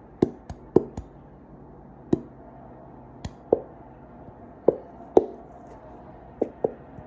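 Sticky homemade slime being kneaded and pulled by hand, giving about a dozen sharp, irregular wet pops and smacks.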